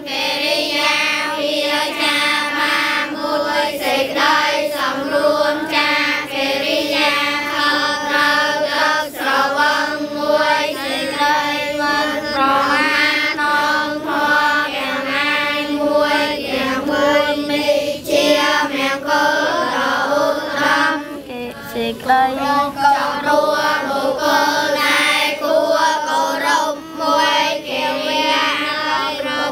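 A large group of children chanting Buddhist prayers together in unison, a steady sustained recitation with no break.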